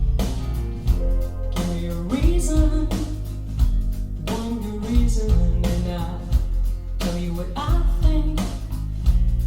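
A song played back through SVS Prime Tower loudspeakers: a singing voice over guitar, heavy bass and a steady drum beat.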